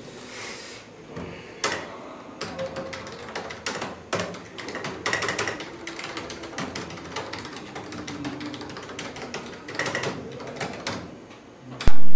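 Computer keyboard being typed on quickly, an uneven patter of key clicks. Just before the end, a loud, low, sustained musical chord cuts in suddenly.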